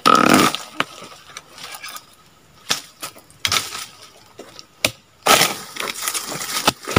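Oil palm frond stalks and fibre being cut with a pole-mounted harvesting chisel (dodos): several separate crunching, cracking strokes, the loudest right at the start and a longer crunching stretch near the end, with sharp clicks between.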